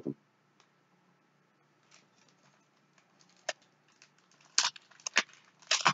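Foil trading-card pack wrapper crinkling and tearing as it is opened by hand: a few short, sharp crackles, most of them in the last couple of seconds. The wrappers are old and shred as they open.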